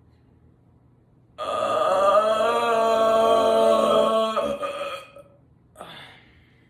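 A woman's long, loud belch, held at a fairly steady pitch for about three and a half seconds and cutting off sharply, followed a second later by a brief faint sound.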